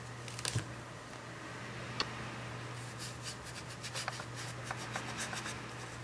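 Watercolor brush bristles rubbing and dabbing on textured paper: quiet scratchy strokes that come quickly in the second half, with a few light clicks about half a second in and one at two seconds. A steady low hum runs underneath.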